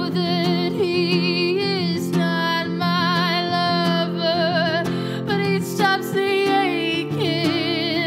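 A woman singing long held notes with a wide vibrato over acoustic guitar accompaniment.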